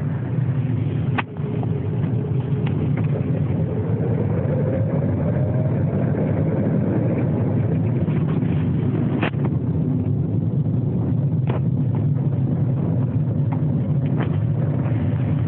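Lada VAZ-21126 1.6-litre 16-valve engine lugging the car along in third gear at idle revs with no throttle, running steadily under load, which the owner presents as piston knock under load. A faint whine rises slowly in pitch a few seconds in, and there are a few sharp clicks.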